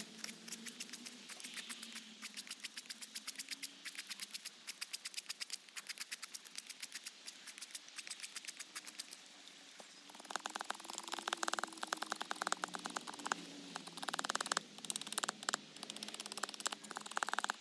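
Straight tracker knife blade shaving sycamore wood: quick, short scraping strokes, a few a second. They get louder and rougher from about ten seconds in.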